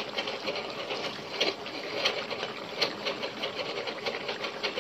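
Wooden spatula stirring and scraping through mutton and green chillies frying in oil in a metal pot, with a steady sizzle and repeated short scraping clicks. The lemon-juice liquid is being cooked down until it dries.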